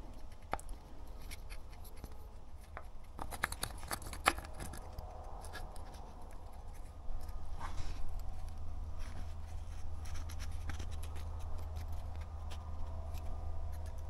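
Small plastic clicks and scrapes as the Jeep axle locker's electrical connector and its wire are worked by hand down into the hole in the differential housing, with a cluster of clicks a few seconds in, over a low steady hum.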